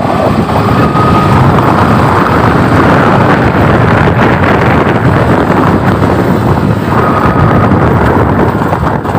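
Loud, steady wind rush on the microphone of a moving motorcycle, mixed with the bike's engine and the rumble of its tyres over a rough, broken dirt track.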